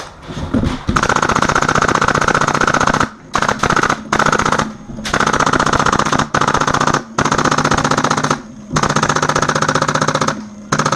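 Custom HPA-powered G&P M249 Para airsoft light machine gun firing full-auto in long bursts, a fast, even rattle broken by short pauses into about eight bursts.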